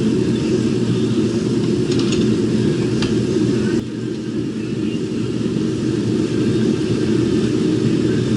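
Steady low machine drone with a few faint ticks; about four seconds in it abruptly drops a little in level and loses some of its high end.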